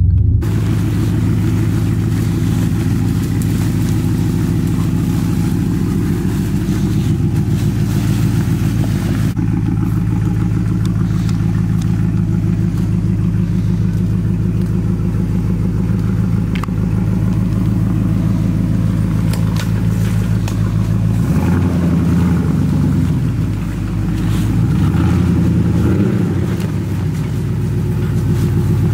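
Lifted Chevy Silverado's engine running at a low, steady speed as the truck crawls along a muddy trail, then revving up and down a few times about three-quarters of the way through.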